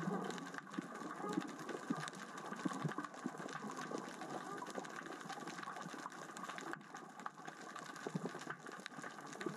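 Underwater crackling: a dense, irregular stream of small clicks and ticks from small rocks rolling across the sea floor as the current and tide move them.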